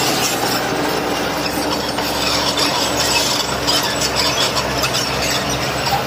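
Old Komatsu crawler bulldozer's diesel engine running steadily under load, with a dense metallic clatter of its tracks and the grind of stone being pushed.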